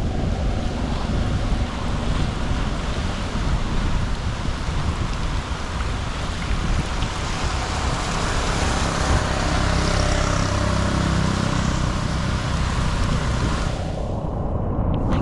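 Water rushing steadily, with wind buffeting the microphone as a heavy low rumble. The rush swells for a few seconds past the middle.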